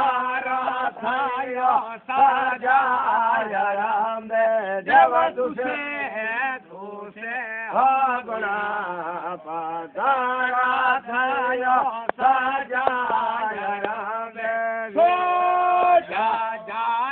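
A man singing in a chanting style: one unaccompanied-sounding melodic voice line with sliding, ornamented pitches and a long held note near the end.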